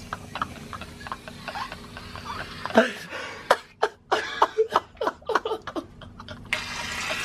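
Stifled giggling and snickering in short bursts, with a steady hiss starting near the end.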